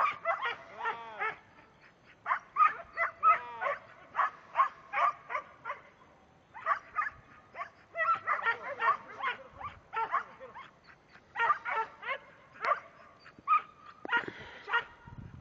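Herding dog barking at calves to drive them: short, high barks coming a few a second in runs, with brief pauses between the runs.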